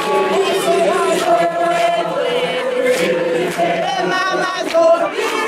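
A group of people singing together in a chant-like song, several voices at once.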